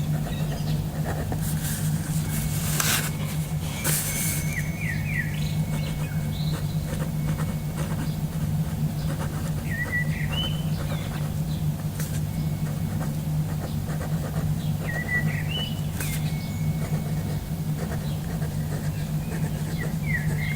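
Birds chirping in short rising calls every few seconds over a steady low hum, with a few brief sharp noises in between.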